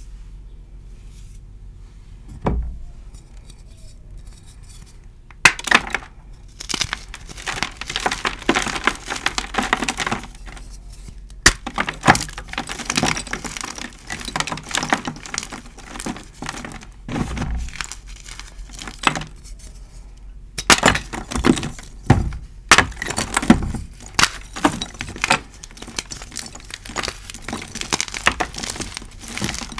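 Hands crushing blocks of dyed gym chalk: the crunchy outer shell cracks and the chalk crumbles into powder in repeated dense crunches. A single soft knock comes about two seconds in, and the crunching starts about five seconds in, with a short lull past the middle.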